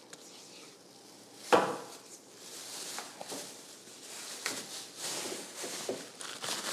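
Silicone spatula scraping thick carrot cake batter out of a metal mixing bowl into a round metal cake pan, with soft scrapes and light clicks of bowl and utensil against the pan. One louder clunk about one and a half seconds in.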